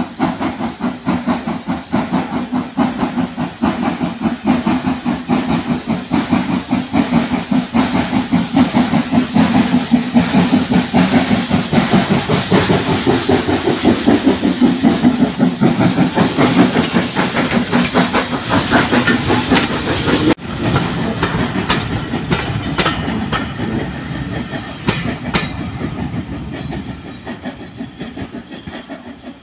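Hunslet Austerity 0-6-0 saddle tank steam locomotive working a train, its exhaust chuffing in rapid beats and growing louder as it approaches and passes. Then the carriages roll by, wheels clicking over the rail joints, and the sound fades away.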